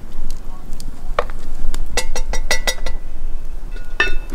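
Metal utensil clinking against a Dutch oven while ground beef with taco seasoning is stirred. A few single ringing clinks, with a quick run of about six clinks just past the middle.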